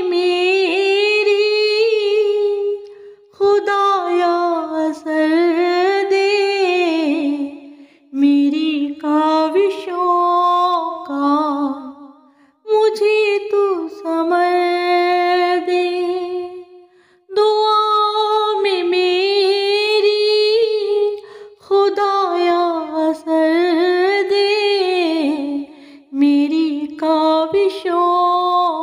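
A woman singing an Urdu dua (devotional prayer song), unaccompanied, in long phrases of held, wavering notes, with short breaks between lines.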